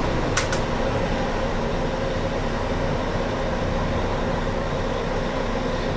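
Steady mechanical hum and hiss of room background noise, with two quick keyboard clicks about half a second in.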